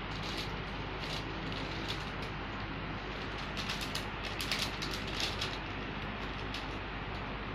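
A cat scratching at a closed door from the other side, its paw raking the door bottom and the plastic sheet over it: bursts of quick scratchy strokes, busiest in the middle, over a steady background hiss.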